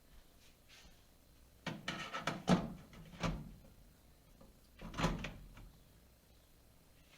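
A few knocks and rattles: a clatter starting just under two seconds in with its loudest knock about midway, another knock about a second later, and a last clatter about five seconds in.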